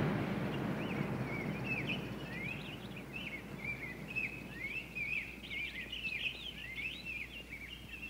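Small birds chirping and twittering in many short, quick calls, while the hiss of rain dies away during the first couple of seconds.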